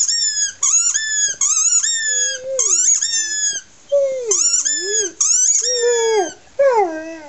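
A dog squeezing a squeaky ball in its mouth, the toy squeaking in quick, very high-pitched runs. From about two seconds in the dog sings along with four lower, drawn-out moans that fall and rise in pitch.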